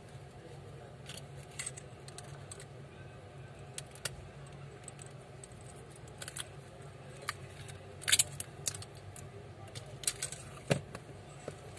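Scattered small clicks and clacks of smartphone parts being handled: the display panel and battery tapped and knocked against the phone's frame, with the sharpest clacks about eight and ten and a half seconds in, over a low steady hum.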